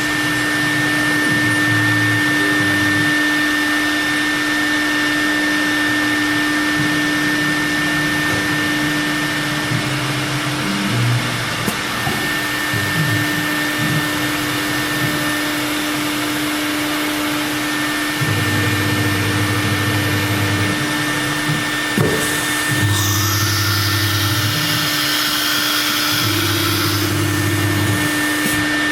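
TR408H ATC CNC router running: a steady high whine and hum with no break, while a lower drone comes and goes in blocks of a second or two as the axes move. About three-quarters of the way through, a louder hissing rush lasts around four seconds.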